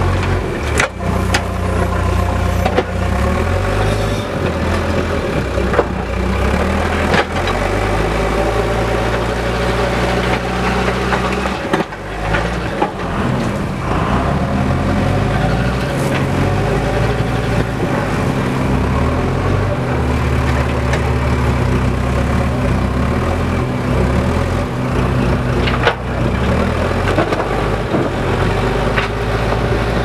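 Tata backhoe loader's diesel engine running loud and close, its speed rising and falling as the machine works earth with its front bucket. There are a few sharp knocks along the way.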